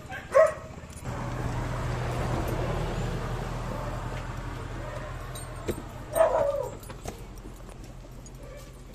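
A dog barks once at the start and again about six seconds in. Between the barks a vehicle passes on the road, its engine hum and tyre noise swelling from about a second in and fading over several seconds.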